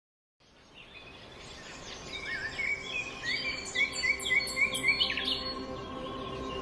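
Birds singing and chirping, fading in about half a second in, with a run of short, evenly repeated notes in the middle, over a faint steady hum.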